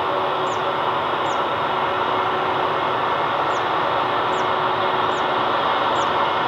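Jet engines of an Airbus A321neo running with a steady, even roar. A short high falling chirp repeats about every second over it, pausing for a couple of seconds in the middle.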